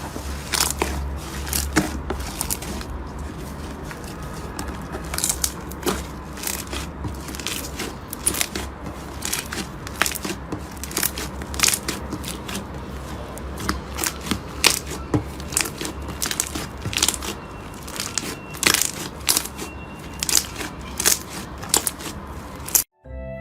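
Slime being squeezed and pressed by hand, giving dense, irregular crackling clicks and pops over a low steady hum; it cuts off suddenly near the end.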